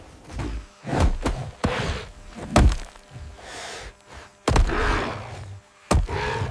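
A series of heavy thuds and knocks, about six at irregular intervals. Several are followed by a short rushing noise.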